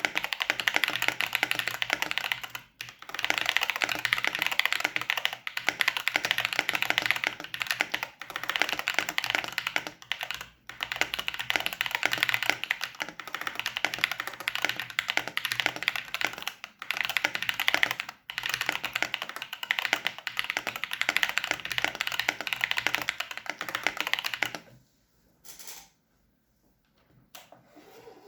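Fast continuous typing on a Keychron C1 mechanical keyboard with Gateron Baby Kangaroo tactile switches and PBT keycaps, the case dampened with foam, Tempest tape and PE foam. Brief pauses break the typing now and then; it stops about three seconds before the end, leaving a few isolated key presses.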